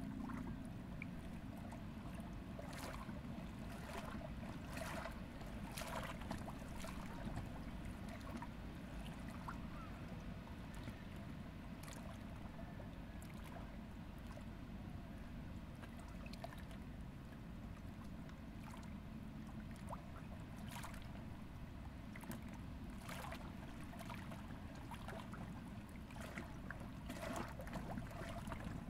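River water lapping and splashing lightly against a rocky bank in irregular small slaps, over a low steady rumble.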